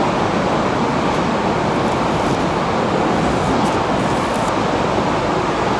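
Steady, loud background noise of warehouse machinery and ventilation: an even rushing hum with no breaks or distinct events.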